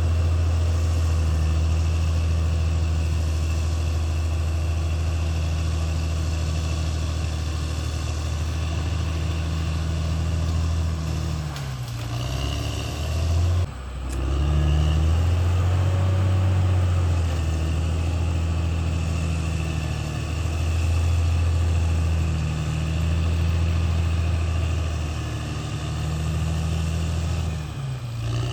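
CAT D6R XL bulldozer's diesel engine running hard under load, its deep note easing off and shifting about halfway through, with a brief sudden drop, before pulling up again and rising and falling with the work.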